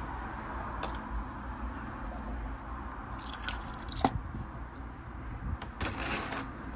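Turkey baster drawing water from a shallow tub of duckweed-covered water: soft squishing with two short hissy slurps about three and six seconds in, and a sharp click about four seconds in.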